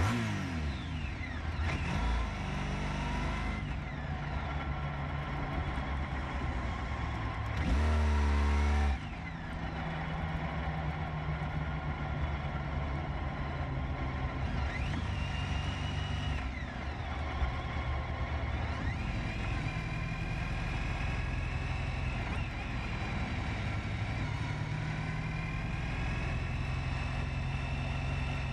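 Honda ST1300 motorcycle's V4 engine running in slow traffic, its pitch rising and falling as it accelerates and shifts gear, over steady wind and traffic noise. A loud burst of about a second comes about eight seconds in.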